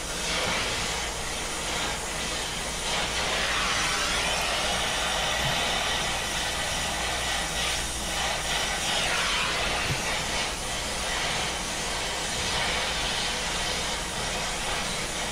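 Oxy-fuel brazing torch flame hissing steadily as it heats the silver-brazed joint of a thick copper suction line, melting the braze so the tube can be pulled free.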